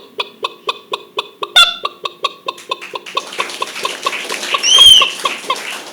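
A person imitating a hen's clucking with the voice: short clucks about four a second, with a loud cackle about a second and a half in and a loud squawk that rises and falls near the end.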